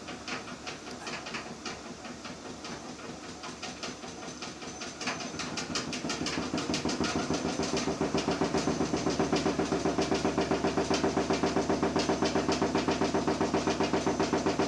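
Washing machine drum speeding up into its spin cycle: a rapid rhythmic churning that grows louder about five seconds in and settles into a steady fast beat. The machine is running on a newly fitted shock absorber and is far quieter and steadier than the owner says it was.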